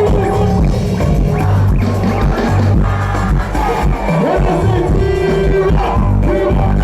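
Loud live concert music over a large sound system, with a heavy bass line and melodic lines on top.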